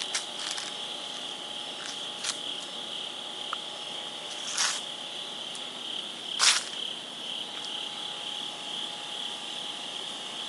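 Steady high-pitched chorus of crickets trilling. A few short rustling crunches come through about two, four and a half, and six and a half seconds in; the last two are the loudest.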